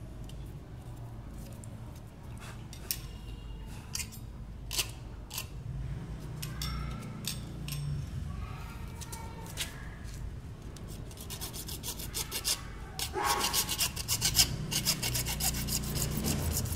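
Hand tools scraping and cutting at the end of a plastic PVC pipe: scattered clicks and scrapes at first, then a run of quick rasping strokes through the second half.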